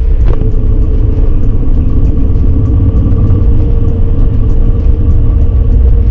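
A motorcycle running at a steady engine note under a heavy, continuous low rumble, with no revving up or down.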